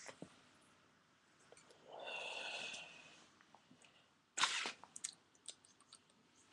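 Tobacco pipe being puffed on while it is lit: soft lip pops and small clicks around the stem, a breathy hiss about two seconds in, and a sudden loud burst of breath, like a sneeze or a sharp exhale, about four and a half seconds in.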